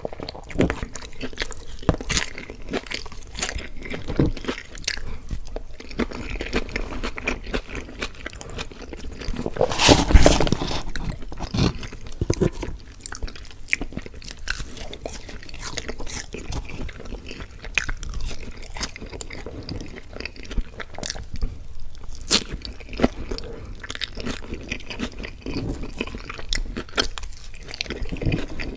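Close-miked mouth sounds of someone eating fast food: wet chewing with many short, sharp crunches. One louder burst comes about a third of the way in.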